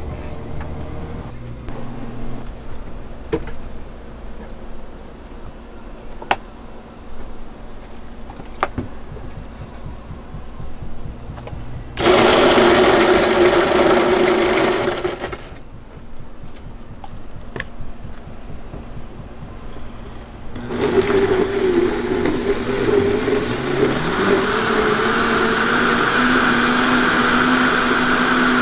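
A few light clicks and knocks, then an ice dispenser pours crushed ice into a plastic cup for about three seconds. About 21 seconds in, a commercial blender starts up, its motor pitch climbing over a few seconds and then holding steady as it blends fruit and ice into juice.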